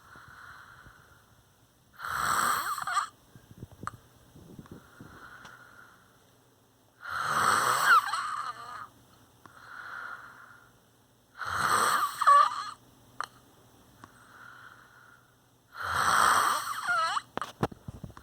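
Slow, rhythmic snoring breaths. A loud, rasping snore about every four and a half seconds alternates with a softer breath in between.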